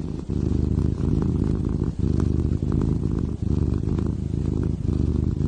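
A cat purring loudly close to the microphone: a steady low rumble that breaks briefly about every second with each breath.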